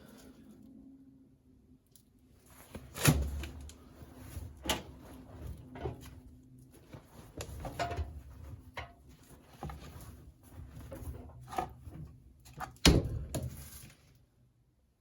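Damp laundry being loaded by hand into a commercial tumble dryer's drum: irregular rustling and handling noises, with a few sharp knocks from the open door and drum, the loudest about three seconds in and near the end.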